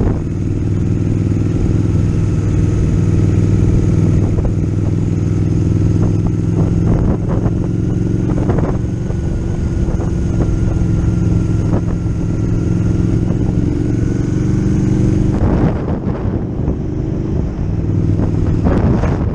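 Motorcycle engine running at a steady cruise, heard from on board, with a few short gusts of wind noise on the microphone.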